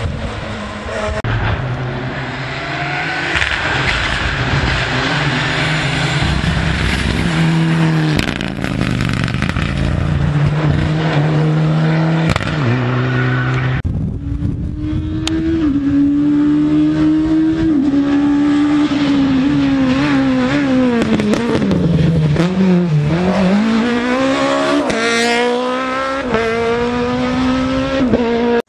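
Rally car engines run hard on a special stage, revving and stepping through gear changes. Then a second car's engine note drops as it slows, about two-thirds of the way through, and rises again as it accelerates hard.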